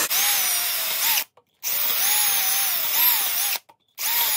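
Milwaukee cordless drill spinning a small pipe-cleaner-style wire brush in the holes of a Toyota 2JZ engine block, scrubbing out coolant-passage debris. It runs in three bursts with short stops between, its whine rising and falling in pitch.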